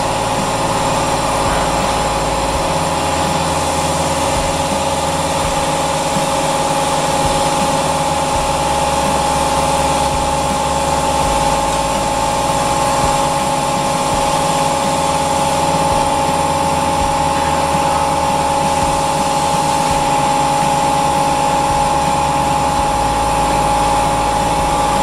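Machinery running steadily: a constant drone with a steady high hum over it, its low end shifting in level every few seconds.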